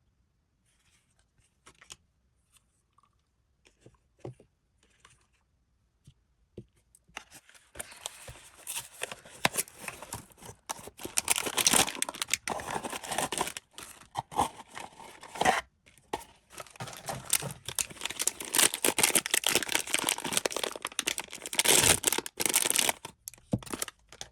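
Blind-box packaging being handled and then torn open by hand, with long stretches of tearing and crinkling. A few light clicks and taps come first; the tearing starts about seven seconds in, pauses briefly midway, and continues almost to the end.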